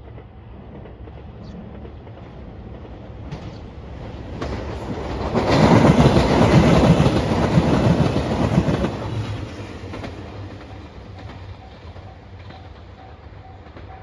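JR Shikoku 2700 series diesel limited express passing close by, its engines and wheels on the rails. It comes up from about four seconds in, is loudest between about five and nine seconds, then fades away as it goes.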